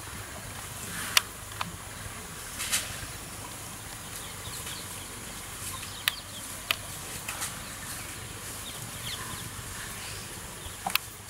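Forest ambience: a steady high insect buzz, with about six sharp snaps spread through it and a few faint bird chirps.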